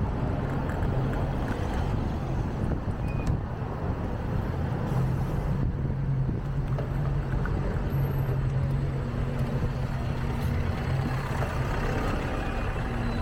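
City street traffic: a steady low engine drone from nearby motor vehicles over a continuous haze of road noise.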